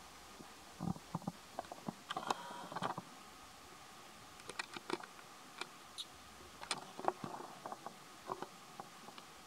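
Scattered light clicks and rustles of monkeys climbing and fidgeting on a seated person's clothing, in small clusters over a steady faint hum.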